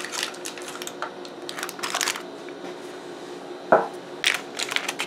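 Aluminium foil crinkling and rustling in short bursts as a block of set fudge is lifted out of a metal baking pan by its foil lining, with the pan being handled. A brief squeak a little before four seconds in.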